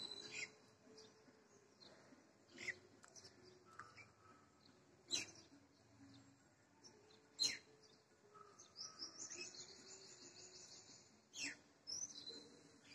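Faint bird chirps: a handful of sharp, down-slurred chirps spaced a few seconds apart, and a rapid high trill lasting about two seconds past the middle.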